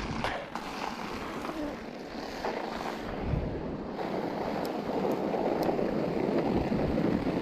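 Steady rushing noise of wind on the microphone, building slightly toward the end, with a few faint clicks.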